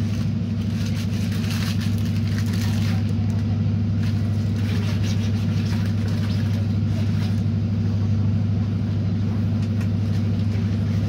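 Inside a moving ADP-class diesel railcar: a steady low engine drone, with a higher hiss that comes and goes twice.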